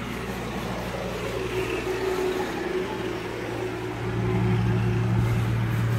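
Steady low motor hum that grows louder about four seconds in.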